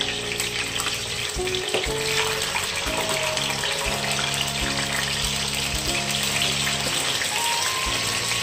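Marinated pork belly and chicken pieces frying in hot oil in a pan, sizzling steadily. Background music plays under it.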